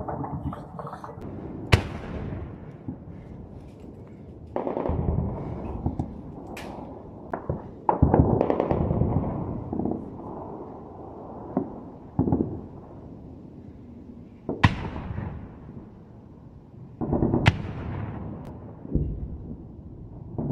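Gunfire echoing across a mountain valley: sharp single reports and bursts of rapid fire, each trailed by a long rolling echo off the slopes.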